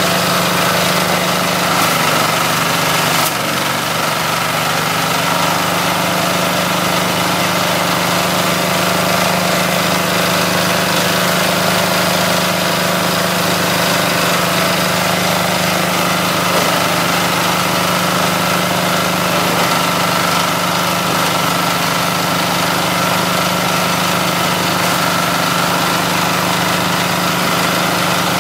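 Small single-cylinder engine driving a coconut-frond shredder, running steadily with its rotor spinning free, with no fronds being fed. Two brief clicks come about two and three seconds in.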